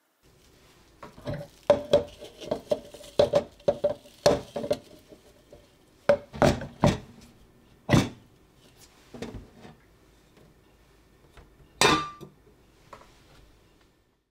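Stainless-steel sink drain basket and lid being handled while a mesh strainer bag is fitted into the drain: a quick run of light metallic clinks and taps with a short ring, a few louder knocks, then one loud ringing clank near the end.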